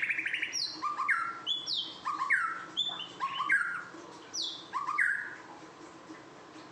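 White-rumped shama calling: a run of short, falling whistled notes, about two a second, that stops after about five seconds.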